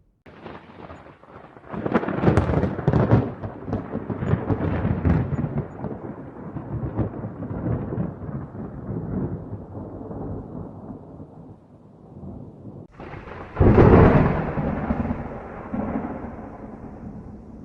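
Two thunder strikes. The first begins with a run of sharp cracks about two seconds in, then rumbles on and slowly dies away; about thirteen seconds in a second strike cuts in suddenly, loudest at its start, and rumbles down.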